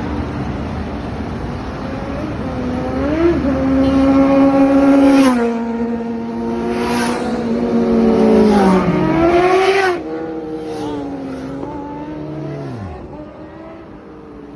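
Superbike engines revving and accelerating away, their pitch climbing and holding, then falling off as the bikes pass. It is loudest in the middle, with a second, quieter engine note dropping away near the end.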